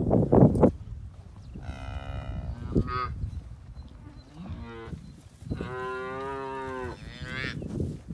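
Cattle mooing: a handful of calls one after another, one rising in pitch and the longest held for over a second in the second half. A loud burst of noise comes in the first second.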